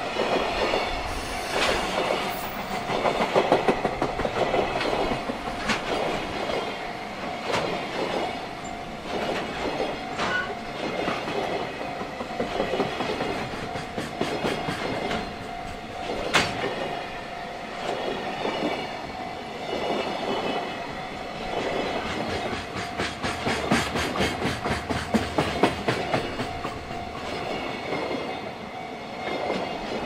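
A long freight train of container wagons running past, its wheels clicking over the rail joints in repeated clusters above a continuous rolling rumble.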